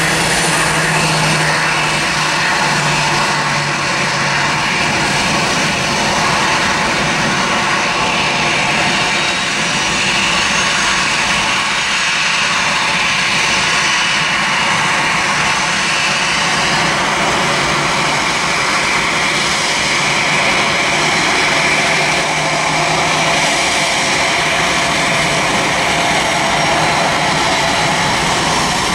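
A Boeing 737-800's CFM56-7B turbofan engines running at high thrust during the takeoff roll: a loud, steady jet noise with a hissing edge.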